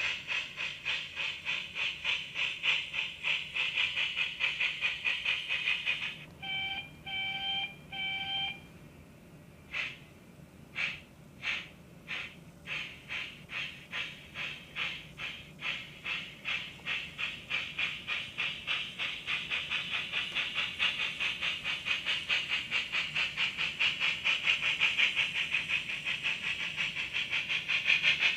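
Sound decoder of a Bachmann narrow gauge steam trench engine model playing steam chuffs through its small speaker, in an even beat of about three a second. About six seconds in come three short whistle toots; the chuffing pauses near nine seconds, then starts again slowly and quickens as the locomotive gets under way.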